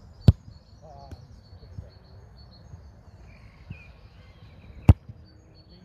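Two sharp thuds of a football being struck, about four and a half seconds apart, with birds chirping faintly.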